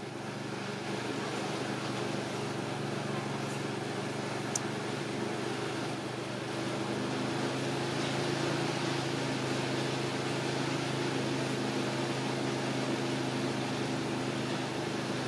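A motor running steadily: an even mechanical hum with several low steady pitches, with one brief high click about four and a half seconds in.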